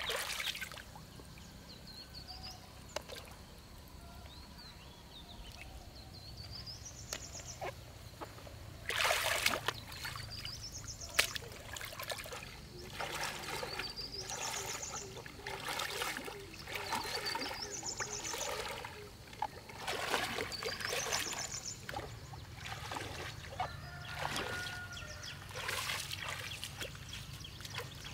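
A person wading through shallow water, with runs of splashing and sloshing steps and water trickling between them. In the background a bird repeats a high rising call that ends in a quick trill, every few seconds.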